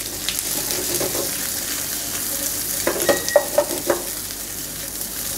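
Chicken, capsicum, onion and whole red chillies sizzling in a nonstick frying pan as they are stir-fried. A spatula scrapes and knocks against the pan several times about three to four seconds in.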